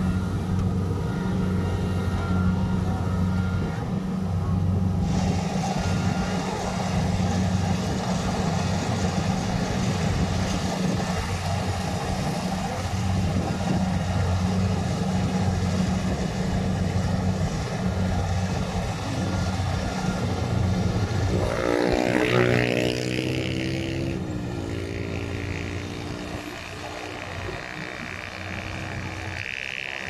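Kubota rice combine harvester's diesel engine running steadily under load as it cuts rice, a constant low hum. About three-quarters of the way through a second, higher engine note glides in and then holds, and the hum grows a little fainter toward the end as the machine moves off.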